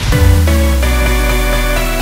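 Progressive house music: a deep held bass note under layered synth chords, with the full arrangement coming in loud at the start after a quieter passage.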